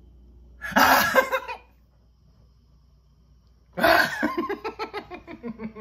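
A man's hearty laughter: a short loud outburst about a second in, then a longer laugh from about four seconds that breaks into quick ha-ha-ha pulses.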